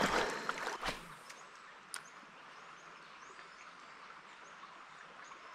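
Water splashing and rustling, fading out about a second in, then a quiet outdoor background with faint, short bird chirps repeating, and a single click about two seconds in.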